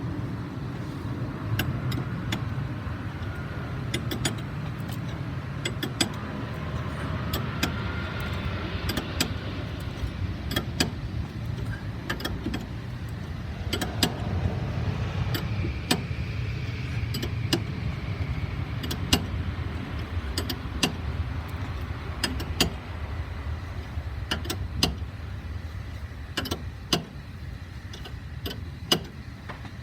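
Spanner work on a thrust reverser turnbuckle: irregular sharp metallic clicks and clinks of the tool on the fitting as the reverser halves are drawn together, over a steady low rumble.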